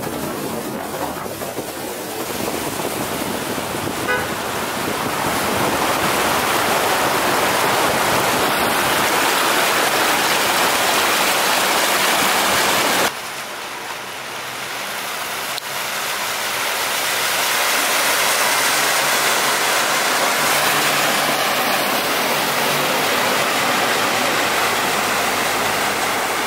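Floodwater rushing and splashing against a Toyota Tacoma pickup as it pushes through a flooded street, a steady hiss that grows louder over the first few seconds. It cuts off sharply about halfway, and a similar rushing of water builds again as a pickup drives through the flood.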